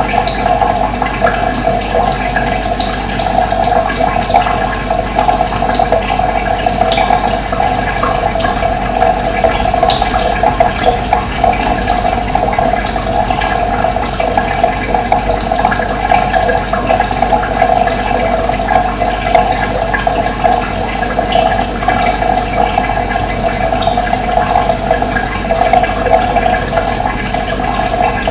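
Running water flowing steadily, with many brief high splashes scattered through it.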